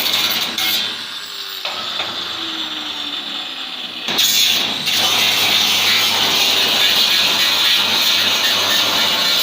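Metalworking in a steel-fabrication shop: a loud, steady hissing, crackling din of cutting or welding on steel tubing. It eases about a second in, while a tool's whine falls slowly in pitch as it winds down, and comes back at full strength about four seconds in.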